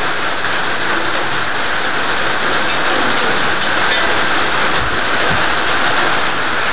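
Steady rain falling, a continuous even hiss, with a couple of faint low knocks about five seconds in.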